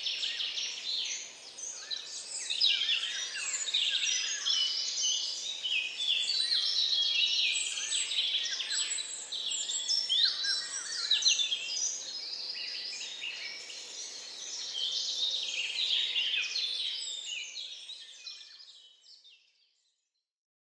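Swamp-forest dawn chorus: many birds singing at once, a dense tangle of overlapping chirps and trills over a faint background hiss. It fades out near the end.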